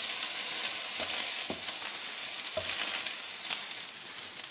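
Chicken pieces sizzling in hot fat in a frying pan as they are lifted out, a steady hiss with a few light knocks of the utensil against the pan.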